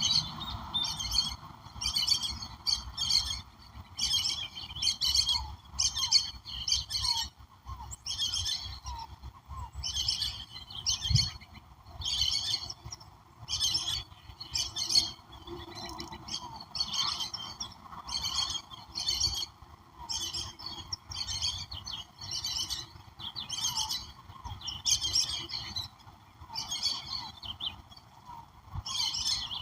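Birdsong: short high calls repeated about once a second, over a steady lower hiss of background sound.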